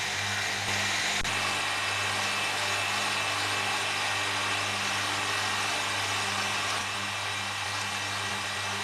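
Bench electric motor running steadily with a hum, spinning a wooden sanding wheel while a bamboo spoon handle is pressed against it, with a steady rubbing hiss of wood on the wheel.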